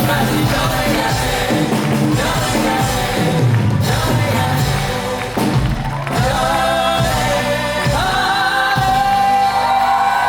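Musical-theatre cast singing live over band accompaniment, ending in a long held note from about eight seconds in.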